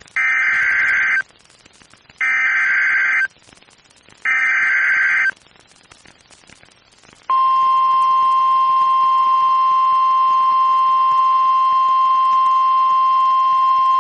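NOAA Weather Radio Emergency Alert System signal: three one-second bursts of SAME digital header data, a harsh buzzing screech, about a second apart, then about seven seconds in the steady 1050 Hz warning alarm tone begins and holds. The data bursts encode the alert, here a severe thunderstorm warning, and the alarm tone announces the warning message that follows.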